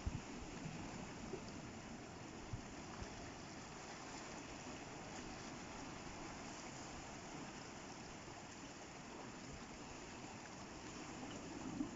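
Seawater washing and trickling through rock pools on the shore, a faint, steady rush. A few low thumps come in the first three seconds.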